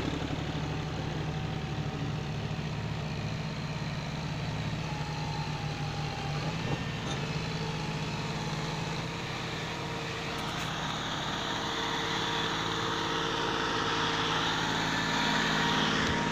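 John Deere 5050D tractor's three-cylinder diesel engine running steadily under load, hauling a heavily loaded trolley through deep sand. The engine drone grows louder over the second half.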